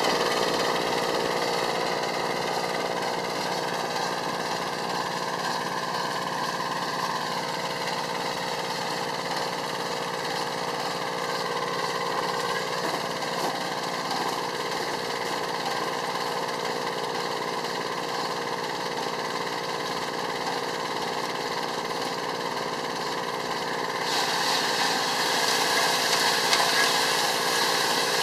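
Yanase 810HST snowblower engine running steadily at idle on a test run after repair. Near the end it grows louder and brighter.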